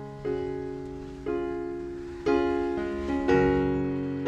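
Background music: a piano playing slow chords about once a second, each left to ring and fade.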